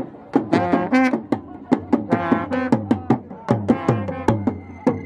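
Traditional procession music: blasts on a long ceremonial trumpet over quick, sharp strokes of hand drums, among them a small hourglass talking drum.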